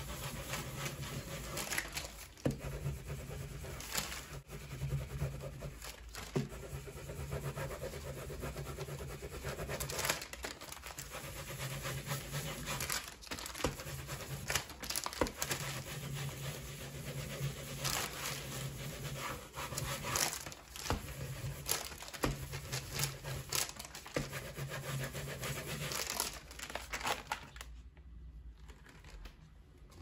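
Baren rubbed in repeated strokes over the back of printing paper on an inked woodblock, a continuous scratchy rubbing that presses the paper onto the ink to take the impression. The rubbing stops about three seconds before the end.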